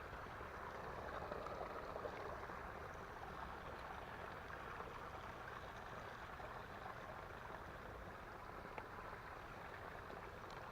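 Small creek's running water, a faint steady rush. A single faint tick near the end.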